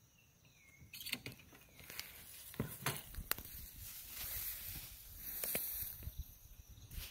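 Rustling and scattered knocks and clicks in tall grass, starting about a second in and growing busier toward the middle, as the released monkey leaves its plastic pet carrier and is followed through the vegetation.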